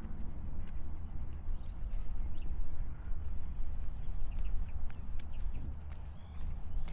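Footsteps of a person walking on a path, with small birds chirping in short calls.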